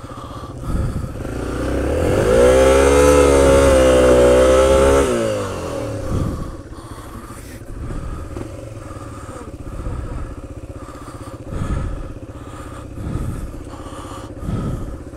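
Yamaha trail bike's single-cylinder four-stroke engine revved hard for about three seconds, pitch rising and then falling, then dropping back to a low, uneven run with small throttle blips.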